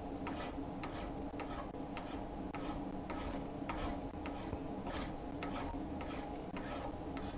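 Hand file rasping across the steel jaw of a post vise in short, even strokes, about two to three a second. It is filing down the jaw's edge and high spots so the jaw face sits flat.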